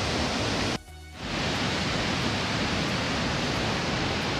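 Steady roar of the Iguaçu Falls' cascades, with a brief drop-out about a second in.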